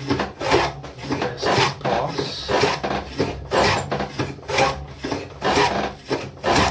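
Metal hand plane pushed along the edge of a wooden board, a rasping stroke about once a second as it shaves the edge flat.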